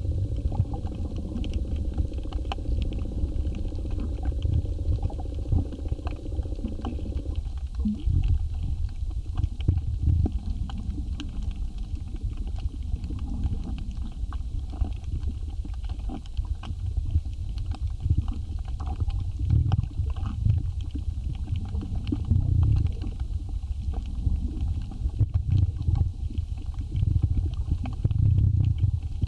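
Underwater ambience picked up by a camera in a waterproof housing: low rumbling swells of water movement with scattered crackling clicks. A steady hum cuts off about seven seconds in.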